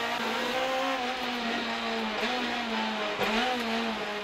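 Vauxhall rally car's engine heard from inside the cabin at high revs under hard acceleration, its note dipping briefly twice as the driver lifts or shifts, over steady road noise.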